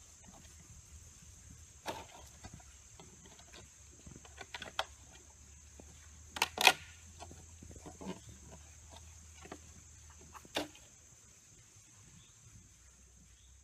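Hollow plastic duck decoy being mouthed and knocked about by a gray wolf: a few sharp clacks, the loudest pair about six and a half seconds in. A steady high insect buzz runs underneath.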